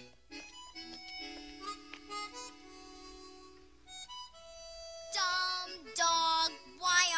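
Harmonica-led orchestral music, the introduction of a show tune. Soft held chords give way to louder phrases with bending notes about five seconds in.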